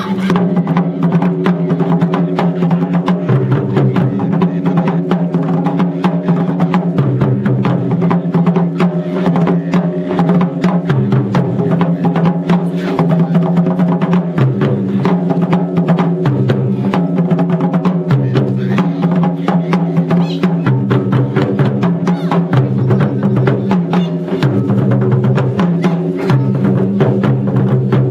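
Background music with a stepping bass line and rapid, dense clicking percussion at a steady level.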